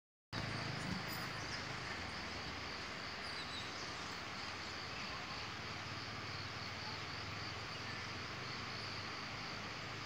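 Insects chirring steadily in forest, a high continuous buzz, over a low even hiss. It starts after a moment of silence right at the start.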